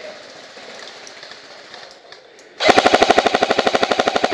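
Electric airsoft rifle, a G&G L85 AFV, firing one full-auto burst about two and a half seconds in: a rapid, even stream of sharp clicks, some fifteen shots a second, lasting about a second and a half.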